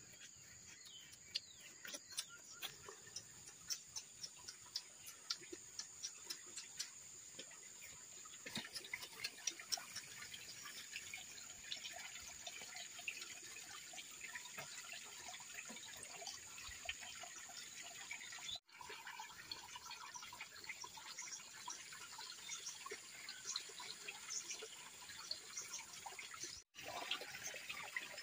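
Faint rural outdoor ambience: a steady high insect drone with many scattered light ticks and clicks, which grow busier after about eight seconds. The sound cuts out briefly twice near the end.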